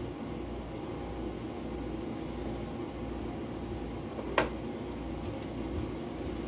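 Steady low kitchen hum with a faint hiss, and one sharp clink of a utensil against a frying pan about four seconds in.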